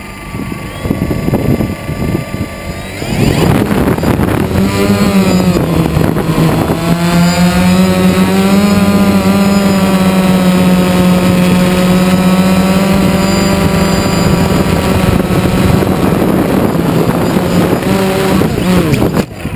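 Quadcopter's electric motors and propellers: a faint high whine, then about three seconds in a spin-up to a loud steady buzz as it lifts off and hovers, its pitch swinging for a few seconds before it settles. Near the end the motors cut off suddenly as the craft tips over, which the pilot puts down to the camera's weight throwing it out of balance.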